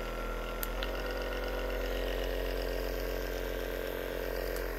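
ADDSFIT deep tissue massage gun running at a high speed setting: its percussive motor makes a steady mechanical hum. A faint click a little under a second in comes with a slight step in the pitch.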